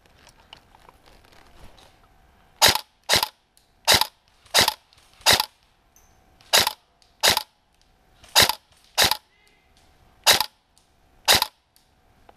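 Airsoft electric rifle, a Tokyo Marui SCAR, firing about eleven single shots in semi-auto, loud and close, one every second or less with uneven gaps.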